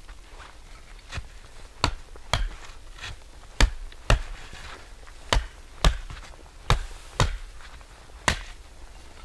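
Wood being chopped: about a dozen sharp strikes, often in loose pairs about half a second apart.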